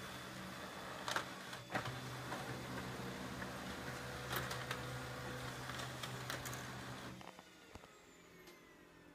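Brother HL-L2300D laser printer running a duplex print job: a steady motor and roller hum with several sharp clicks as the sheet is pulled back in for its second side and fed out again. The motor stops about seven seconds in, as the job finishes.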